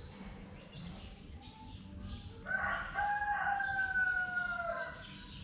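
A rooster crowing once, a single long call of about two seconds that starts about two and a half seconds in and sags in pitch at the end, over faint small-bird chirps.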